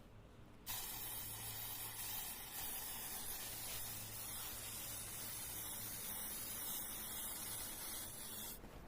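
Paint spraying: one continuous hiss of about eight seconds that starts suddenly about a second in and cuts off near the end.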